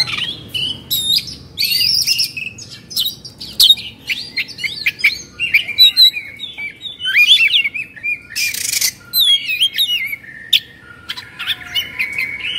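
Oriental magpie-robin (kacer) singing a rapid, unbroken stream of varied whistles, chirps and sharp clicking notes: the agitated 'kongslet' song that keepers prize.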